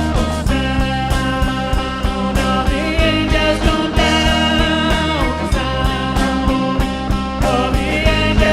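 Live worship band playing an instrumental rock passage: guitar over bass and drums, with a steady beat.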